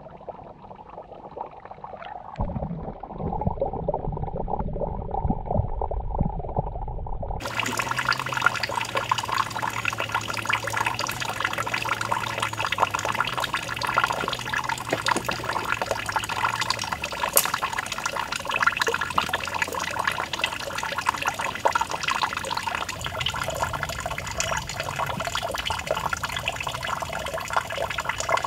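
Muffled underwater sound for the first seven seconds or so. Then a thin stream of water from a small fountain spout splashes and trickles steadily into a shallow pool.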